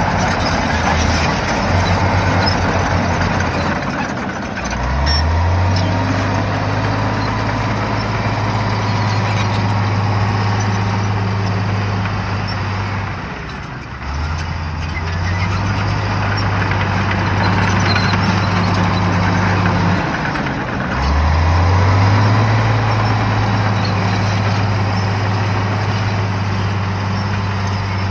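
Shantui bulldozer's diesel engine working under load, its pitch climbing as it revs up three times, about 5, 14 and 21 seconds in, over a steady noisy rattle of the running machine.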